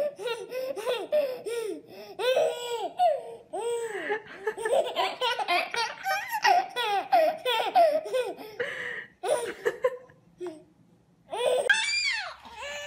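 Two babies belly-laughing back and forth in many short bursts, each rising and falling in pitch. After a short pause near the end, a toddler gives a brief whining cry.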